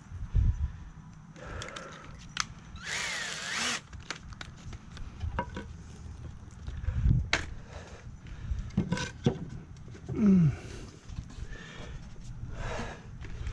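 A drill running in a short burst into 2x4 lumber, its motor whine rising and falling, among knocks and clatter of wood and tools being handled.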